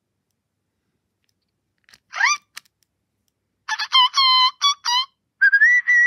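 WowWee Fingerlings Sweet Tweets interactive toy bird playing electronic tweets from its small speaker: a single rising chirp about two seconds in, a quick run of chirps, then a wavering whistled tweet near the end.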